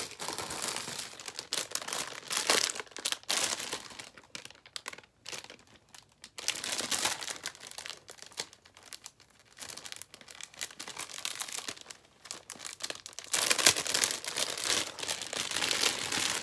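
Plastic hair-bundle packaging crinkling as it is handled and unwrapped, in irregular bursts that are loudest near the end.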